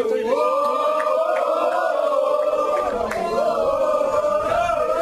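Group of rugby supporters singing a chant together, many voices holding and sliding long notes.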